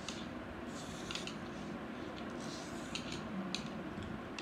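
Chopsticks clicking against each other and tapping on plates while noodles are eaten: a handful of light, scattered clicks over a steady low background hiss.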